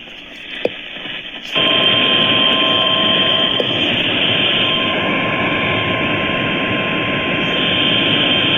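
Loud static hiss from a weakly received weather radio broadcast, jumping up about a second and a half in, with a steady high alert tone running through it, typical of the NOAA Weather Radio warning alarm tone.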